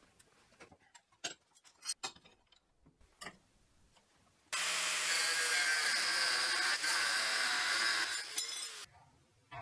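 An angle grinder with a thin cut-off disc cutting through steel flat bar held in a vise: a loud, steady, hissing cut that starts about halfway through and stops near the end. A few light clicks and taps come before it.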